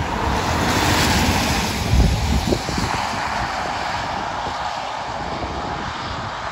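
Vauxhall Astra estate police car passing at speed on a soaked road, its tyres hissing through surface water, loudest about two seconds in and then easing off as it draws away.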